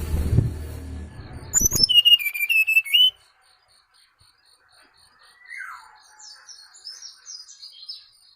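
Brown-chested jungle flycatcher (SRDC) lure song. A loud burst of warbling, chirping song comes about a second and a half in and stops abruptly after about a second and a half. It is followed by a softer downward-sliding whistle and faint high chirps. It is used to lure the bird in.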